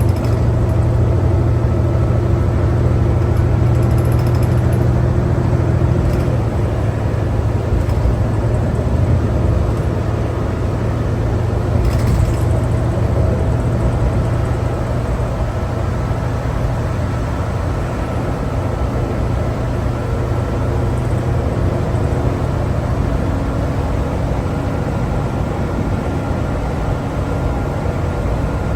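A 2011 New Flyer D60LFR articulated diesel bus under way, heard from inside: its Cummins ISL9 engine and Allison B500R transmission give a steady low drone with road noise and a faint whine, the pitch changing slightly a couple of times. A brief sharp rattle or knock comes about 12 seconds in.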